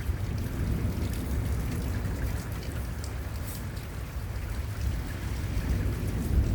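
Heavy thunderstorm rain falling steadily, with a low rumble beneath it and scattered drops ticking sharply.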